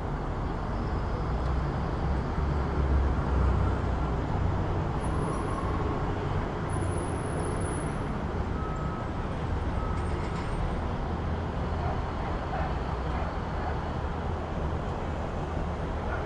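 City street traffic: a steady low rumble of passing vehicles, swelling a little about three seconds in.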